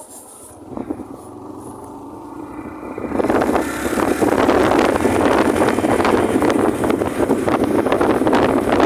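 Motorcycle running on the move, with wind rushing over the microphone; the engine is faint at first, then the rush grows loud about three seconds in as speed picks up.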